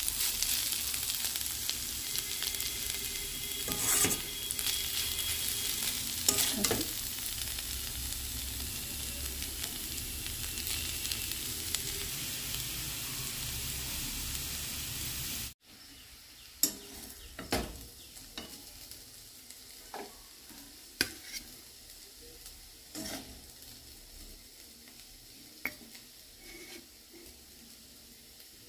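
Grated potato fry (aloo bhaja) sizzling in hot oil in an aluminium kadai, nearly done, with a metal spatula scraping through it now and then. About halfway through the sizzle cuts off abruptly, leaving a quiet stretch with scattered light clinks and taps.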